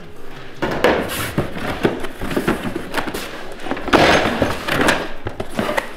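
Cardboard box being handled and its flaps pulled open, with rustling, scraping and small knocks, loudest about four seconds in.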